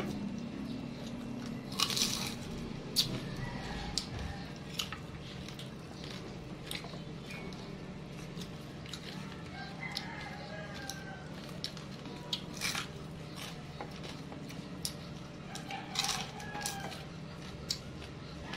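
Eating sounds from a meal of crispy fried fish eaten by hand: scattered sharp crunches, clicks and taps of fingers and food on the plate and paper towel. A few faint drawn-out calls sound in the background, over a steady low hum.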